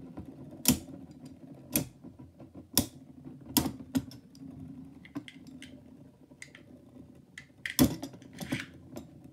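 Two metal Beyblade tops spinning on a plastic lid: a low whirr from their spinning, broken by sharp metallic clacks about once a second as they collide. The whirr fades after about six seconds, and near the end a slowing, wobbling top clatters in a quick run of loud clacks.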